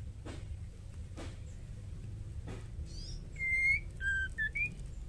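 White-rumped shama whistling a short phrase about two-thirds of the way through: a few thin high chirps, one held clear whistle, a lower note, then a short rising one.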